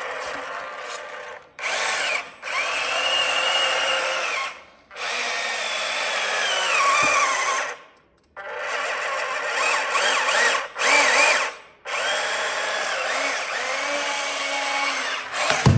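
Small electric motors and gears whining in several short stretches, their pitch rising and falling as the speed changes. Each stretch stops abruptly.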